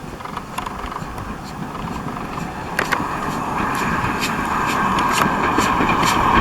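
Steam-hauled train drawing closer and growing steadily louder, with a run of sharp metallic clanks and a steady high-pitched hiss building from about halfway through.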